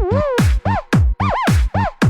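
Electronic dance music with a fast, heavy kick drum, about four to five beats a second, and a synth line whose notes swoop up and down in pitch.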